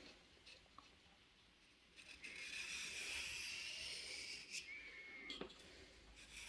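Steel knife blade drawn along a wet sharpening stone: a long scraping hiss starting about two seconds in, then a shorter stroke and a light click.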